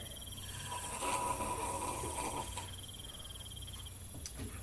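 Crickets chirping: a steady high trill that drops out for about a second and then carries on.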